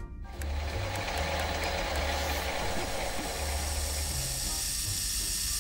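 Metal lathe turning a brass part, the cutting tool peeling off chips with a steady hiss, under a low note that steps in pitch.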